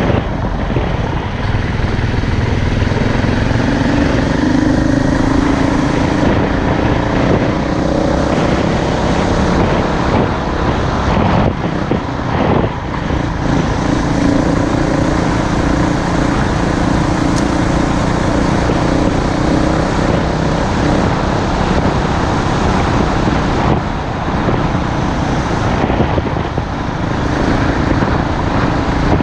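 Off-road motorcycle being ridden on a trail, its drive note rising and falling with the throttle over steady rushing noise.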